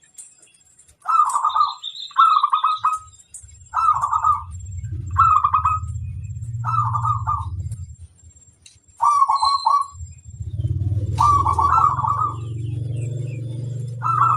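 Zebra dove (perkutut) cooing: a series of short, rolling coo phrases repeated about eight times, one to two seconds apart. A low rumble runs under it for much of the time, with faint high chirps and ticks.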